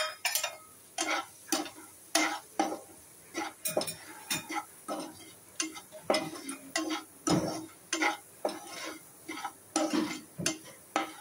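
A perforated steel spatula scraping and stirring onions and spice powder around a frying pan in irregular strokes, with a light sizzle of the onions frying in oil. A sharp knock at the very start.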